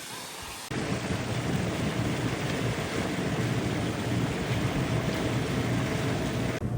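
Loud, steady rush of wind and water aboard a sailboat under way, with heavy wind buffeting on the microphone. It comes in abruptly just under a second in, after a quieter hiss.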